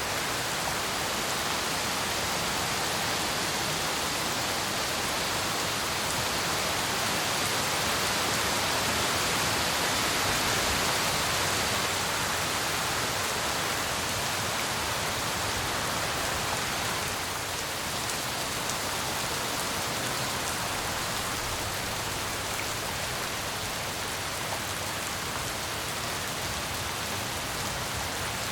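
Steady heavy rain falling and pattering on surfaces, a dense even hiss that swells slightly a few seconds in and eases a little past the middle.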